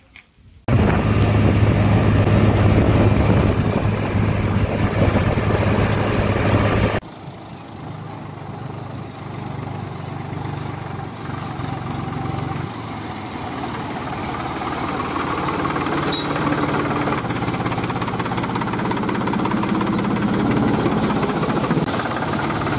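Powertrac Euro 45 Plus tractor's diesel engine running, loud and steady with a strong low hum; it cuts off suddenly about seven seconds in and a quieter engine sound follows that slowly grows louder.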